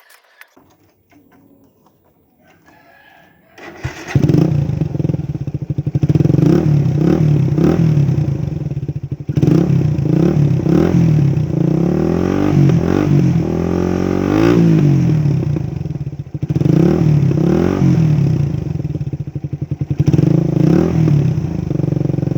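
Motorcycle engine with an Akrapovic 51 mm big-elbow exhaust and DB killer, starting up about four seconds in and then revved again and again, the pitch climbing and dropping with each blip of the throttle.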